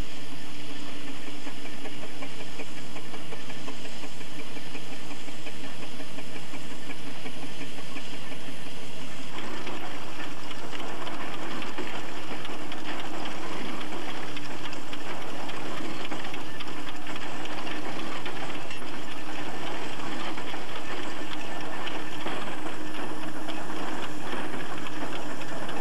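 Threshing machine at work, its drum driven by belt from a steam traction engine: a steady humming drone with machinery clatter. About nine seconds in, the sound shifts to a louder, busier clatter with rapid ticking.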